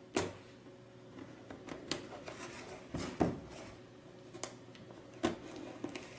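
Scissor blade slitting the packing tape along a cardboard box's seam: irregular clicks, snips and short scrapes against the cardboard, the loudest about three seconds in and again just after five seconds.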